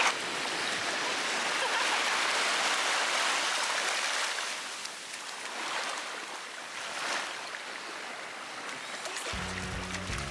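Small waves washing in over the sand in shallow surf, a rushing hiss that swells and eases. Background music starts near the end.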